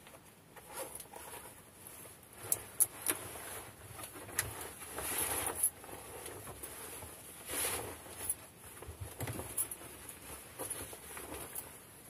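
Clothing and bedding rustling with scattered light knocks and clicks as a person moves about and settles on a bunk, with two longer spells of rustling, about five and seven and a half seconds in.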